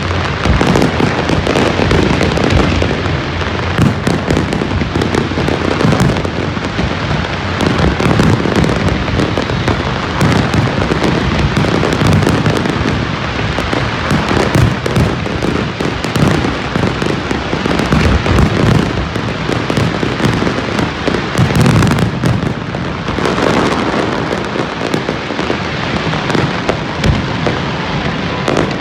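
Fireworks display going off in a dense, unbroken barrage of overlapping bursts and crackle.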